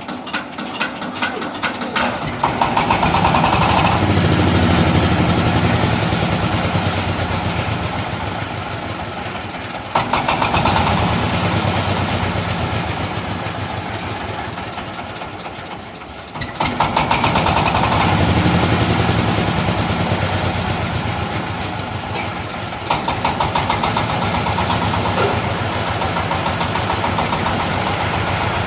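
An engine running, surging up and then slowly easing down again in repeated cycles, with sharp rises about ten, sixteen and twenty-three seconds in.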